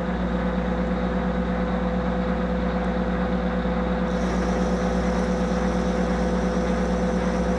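Monarch 10EE lathe running steadily under power during a thread-cutting pass, a constant machine hum with a steady whine above it. A faint high-pitched tone joins about four seconds in.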